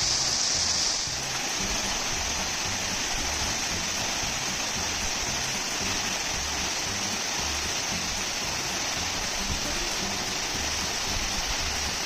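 Waterfall: water pouring and splashing in a steady rushing hiss, easing slightly about a second in.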